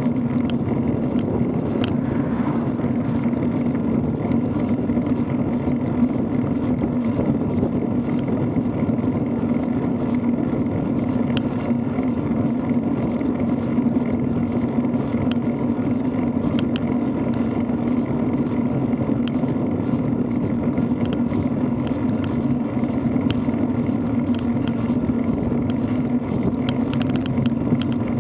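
Steady rush of wind on a bike-mounted camera microphone mixed with road-bike tyres running on asphalt, with a constant low hum under it. Scattered small ticks come through, more of them near the end.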